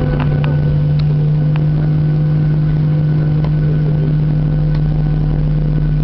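Steady low drone of a Boeing 737-800 heard from inside the passenger cabin, with a few light clicks in the first second or two.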